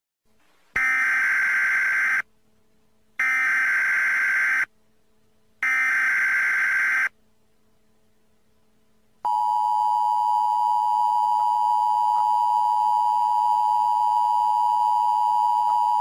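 Emergency Alert System tones: three bursts of SAME header data, each a harsh digital screech about a second and a half long with short gaps between, then after a pause the steady two-tone attention signal (853 and 960 Hz together) starts about nine seconds in.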